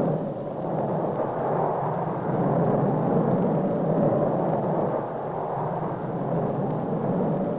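Jet airliner's engines running: a steady, even rushing rumble.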